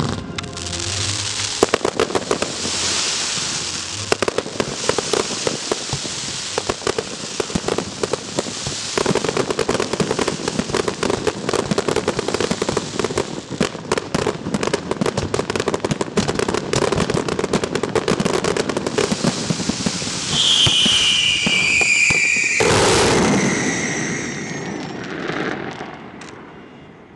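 Fireworks going off in a dense barrage of rapid crackling bangs. About twenty seconds in, whistles falling in pitch ring over the crackle before the barrage dies away near the end.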